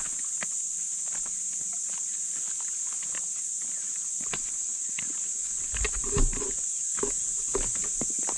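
Footsteps of hikers walking on a dirt and rock mountain trail, an irregular run of short steps and scuffs, with a heavier thump about six seconds in. A steady high-pitched hiss runs under them.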